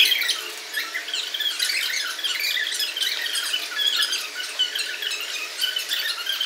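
Fast-forwarded conversation between two women: their voices sped up into high, quick, chipmunk-like squeaks and chatter.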